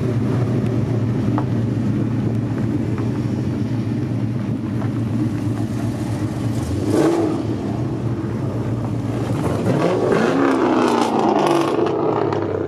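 Car engine running steadily, then revving up and easing off twice: once about halfway through and again later on.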